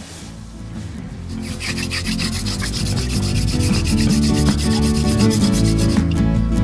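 Background music fading in over the first couple of seconds: a fast, even, scratchy rhythm over changing low chords.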